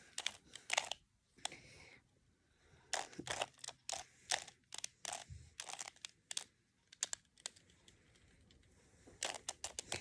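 A plastic 2x2 Rubik's cube clicking as its layers are twisted by hand, in quick runs of sharp clicks with a lull of about two seconds near the end.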